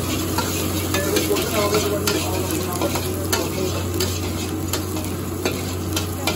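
Chopped garlic sizzling in hot oil in an iron wok, stirred with a metal spatula that scrapes and clicks against the pan many times, over a steady low hum.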